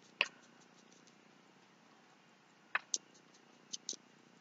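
Quiet room with a few faint short clicks: one just after the start, then two quick pairs near the end.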